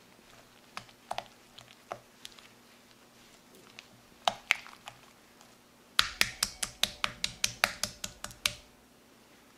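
Silicone spatula beating cream cheese and sugar in a glass bowl: scattered clicks, then from about six seconds in a fast run of sharp clicks, about five a second, as the spatula knocks against the glass.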